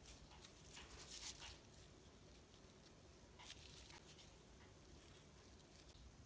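Near silence, with faint rustling and a light click as small decorations and a paper flower are handled and set down.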